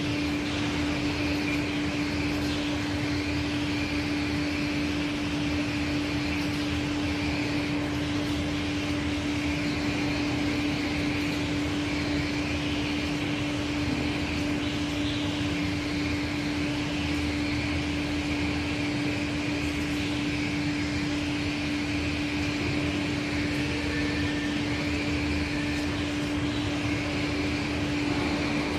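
1988 Aschersleben guideway grinding machine running at work on a workpiece: a steady hum with one strong low tone over an even hiss, unchanging throughout.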